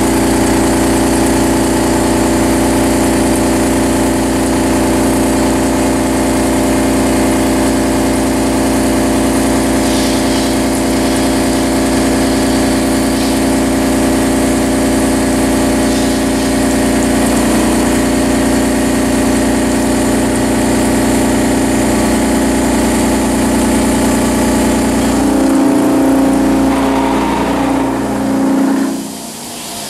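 Correa FOX 40 milling machine cutting a metal block: a steady drone of the spindle and cutter, with several held tones. Near the end the sound changes and the level drops.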